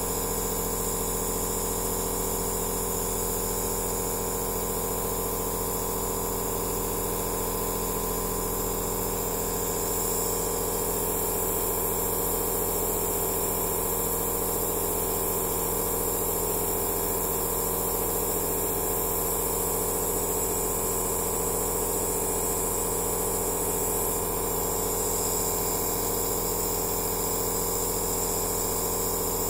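Aerosol therapy machine (nebulizer) running steadily: a constant electric hum with a hiss of air over it, a little louder from about ten seconds in.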